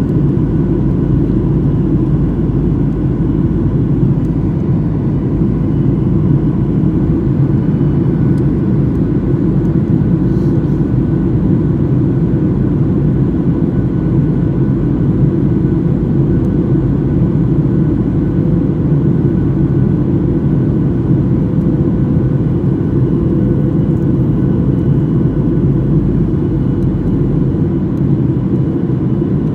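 Jet airliner cabin noise in flight: a steady, mostly deep drone of engines and rushing air, with faint steady tones above it.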